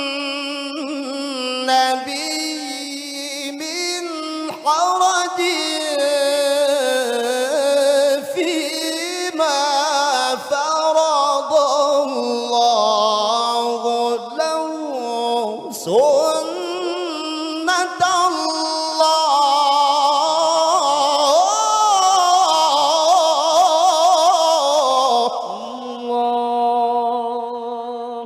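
A man reciting the Qur'an in the melodic tilawah style into a handheld microphone. He sings long ornamented phrases that waver and glide in pitch, and ends on a long held note that fades away near the end.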